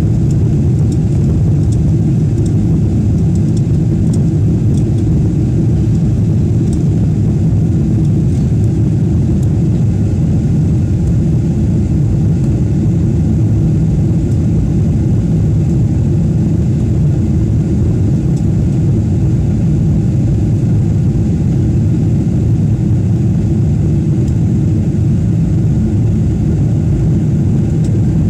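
Steady low-pitched cabin noise inside an Emirates Boeing 777-300ER in flight. It is the even drone of its GE90 engines and airflow heard from a window seat.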